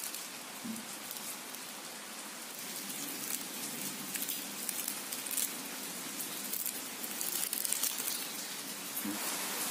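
Charred sal leaves crackling and rustling as hands peel open a leaf-wrapped parcel of roasted small fish, over a steady rain-like hiss.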